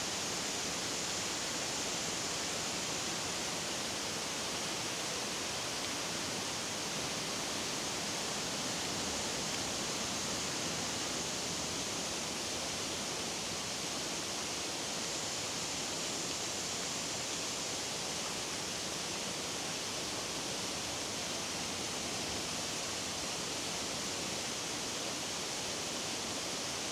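Steady, even hiss of falling water, with no change or break.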